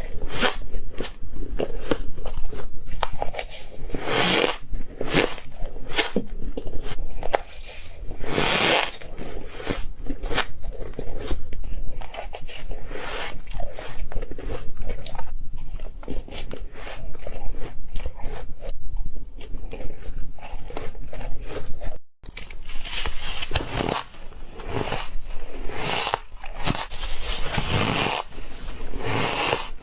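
Ice being bitten and chewed close to the microphone: a dense run of loud, crisp crunches with no let-up, breaking off for an instant about two-thirds of the way through.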